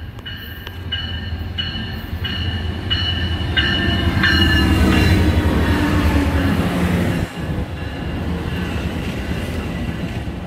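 Amtrak passenger train pulling into the station, a bell ringing about one and a half times a second over a low rumble of engine and wheels that builds and then drops off suddenly about seven seconds in.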